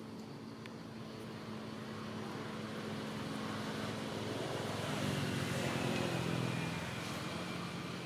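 A motor vehicle's engine passing by off-screen: its hum grows steadily louder to a peak about five to six seconds in, then fades.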